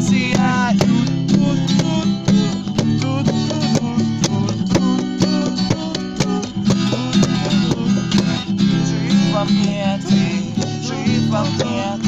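Acoustic guitar strummed in a steady rhythm, with voices singing along at times.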